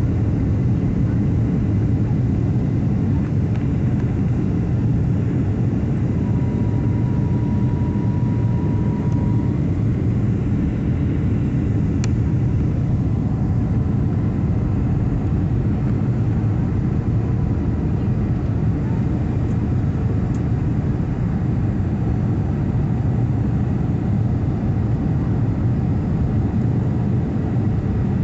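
Steady, deep cabin roar of a Boeing 757-300 airliner descending on approach, heard from a window seat beside the engine: jet engine and airflow noise. A faint high tone sounds for a few seconds about six seconds in, and a single click comes near the middle.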